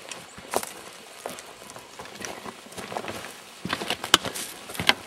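Irregular footsteps crunching over dry ground and brush, with a sharp snap about four seconds in and another near the end.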